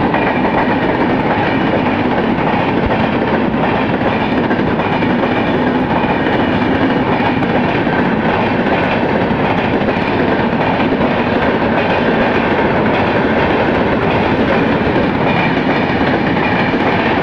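Coaches of the push-pull CSMT Rajdhani Express passing at speed. A loud, steady rush and clatter of wheels on the rails continues without letup.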